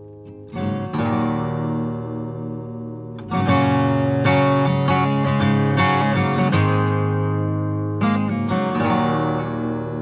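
Background music: an instrumental passage of strummed acoustic guitar chords, with no singing. It gets louder about three seconds in.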